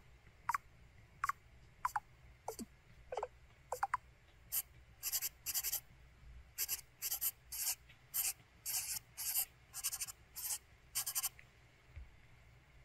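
Sound effects from an LG-SV850 mobile phone. First come about seven short chirps that mostly glide downward. From about four seconds in, a run of short scratchy strokes at roughly two a second sounds like a pen scribbling on paper.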